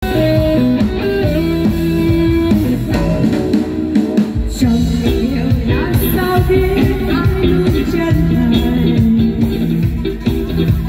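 Music with a steady, evenly pulsing low beat under held pitched notes.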